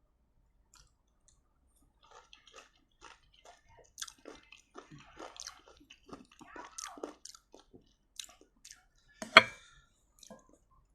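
Close-miked chewing of crunchy lime rujak with sambal: a quick run of short, wet, crisp crunches. One much louder crunch comes near the end.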